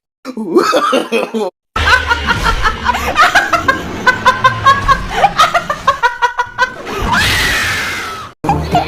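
Laughter in quick repeated bursts, in short clips cut together, followed near the end by a noisy swell.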